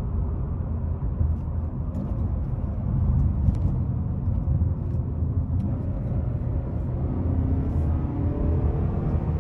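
Engine and road rumble inside the cabin of a high-mileage six-speed manual Acura under way. From about six and a half seconds in, the engine note rises steadily as the car accelerates.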